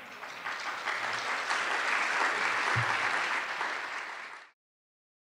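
Audience applauding at the end of a talk, the clapping swelling to a steady level and easing slightly before it cuts off suddenly about four and a half seconds in.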